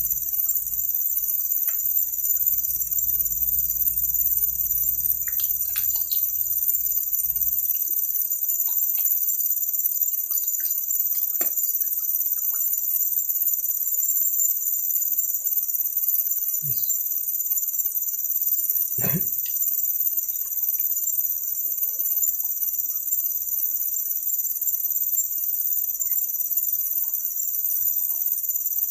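A steady, high-pitched chorus of insects droning without a break, with two short low sounds a little past the middle.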